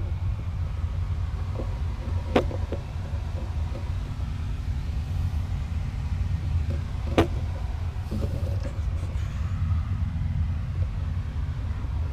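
A steady low rumble with two sharp clicks, about two and seven seconds in.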